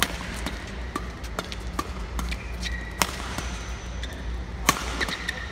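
Badminton rally: rackets strike the shuttlecock with sharp cracks, the loudest at the start, about three seconds in and near the end, and shoes squeak briefly on the court mat between them, over a steady low hall hum.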